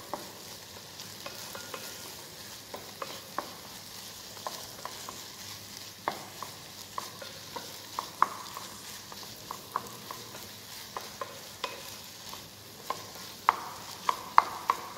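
Diced vegetables with tomato puree sizzling in a small pan while a wooden spatula stirs them continuously. The spatula scrapes and taps against the pan at irregular moments, with a quick run of taps near the end.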